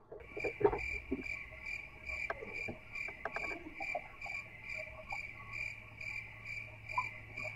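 Crickets chirping: a steady high chirp pulsing about two to three times a second over a low hum, with scattered faint knocks.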